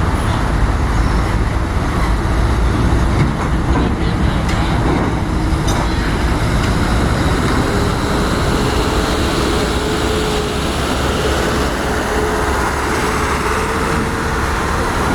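Loud, steady rumble of heavy engine machinery, with a faint whine slowly rising in pitch from a few seconds in.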